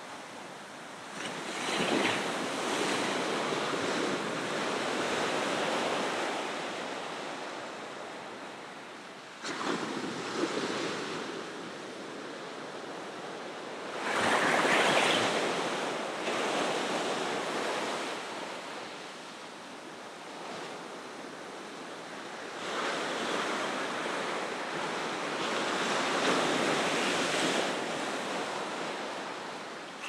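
Ocean surf: waves breaking and washing in, the roar swelling and ebbing in slow surges, with louder breaks about two seconds in, around ten seconds, a strong one around fifteen seconds, and a longer build near the end.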